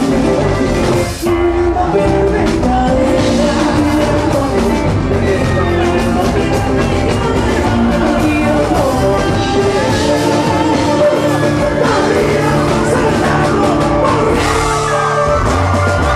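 Live band playing a song with a man singing lead vocals over the full band. The sound dips briefly about a second in, then carries on at full level.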